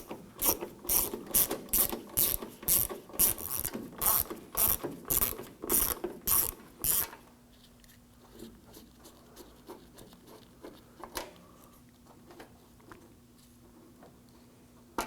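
Ratchet wrench with a T25 Torx bit clicking in even strokes, about two a second, as the latch mechanism screws are backed out of the door shell; the clicking stops about seven seconds in, leaving a few faint, scattered clicks and taps.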